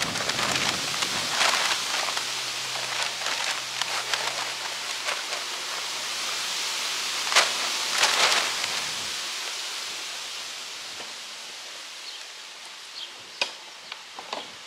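Cut grass clippings being shaken out of a lawn mower's grass-catcher bag into a paper yard-waste bag: rustling and paper crackle with a couple of sharp clacks, dying away after about nine seconds. A few sharp clicks near the end as the mower is handled.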